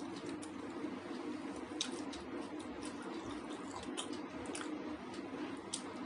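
Close-up eating sounds of a person tearing and eating butter naan with butter paneer: scattered small wet clicks and smacks from fingers on the bread and from chewing. A steady low hum runs underneath.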